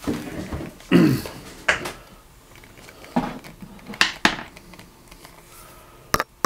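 Handling noise from an air rifle and its telescopic sight being shifted about right by the microphone: a scattering of short knocks, taps and clicks at uneven intervals, with a quick pair of sharp clicks near the end.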